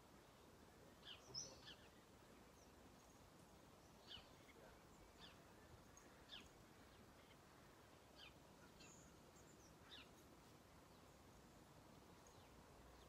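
Near silence with faint, short bird chirps every second or two.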